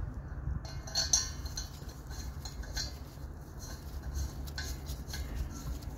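Brass hose coupling being fitted onto the valve of a refrigerant cylinder: a few light metallic clicks and clinks, the loudest about a second in, over a low rumble.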